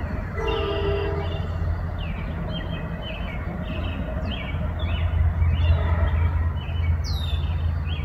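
Wind rumbling on the microphone, with small birds chirping over it about twice a second. A sharp descending whistle sounds near the end. About half a second in, a steady horn-like tone rises out of the wind for about a second.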